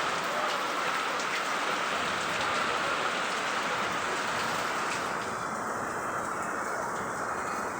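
Steady rain falling, a dense hiss with scattered drop ticks; its higher hiss thins a little about five seconds in.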